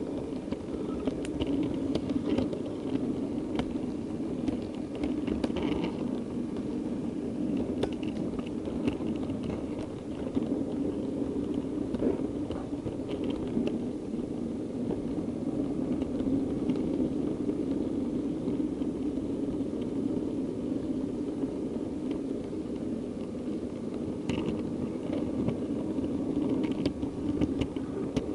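Model diesel multiple unit train running along the track, heard from on board: a steady rumble with scattered light clicks as the wheels cross rail joints and pointwork.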